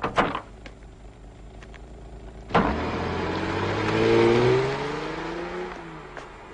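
A car door clunks right at the start; about two and a half seconds later the old car's engine starts suddenly and revs up, its pitch rising and then falling as it pulls away and fades out near the end.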